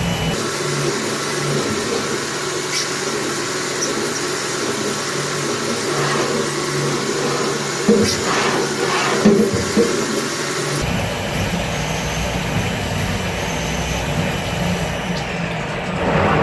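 AutoMateCNC VMC425 vertical machining center milling a part: steady machining noise from the running spindle and cut, with a few short knocks. The sound changes in character about eleven seconds in.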